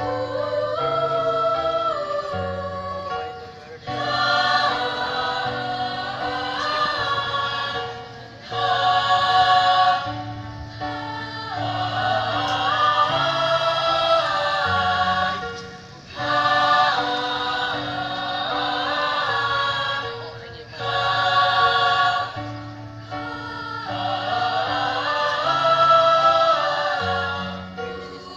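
A choir singing a hymn in phrases a few seconds long, with short breaks between them, over a sustained low accompaniment.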